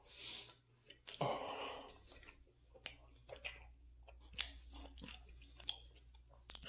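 Close-up chewing of food, with crunches and a string of short wet mouth clicks.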